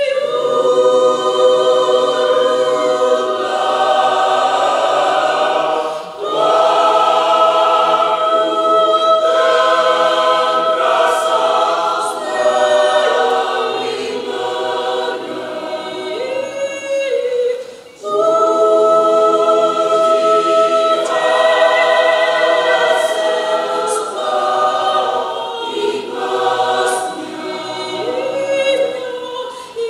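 Mixed choir of men and women singing in parts: long held chords in sung phrases, with two short pauses between phrases, about six seconds in and again just past the middle.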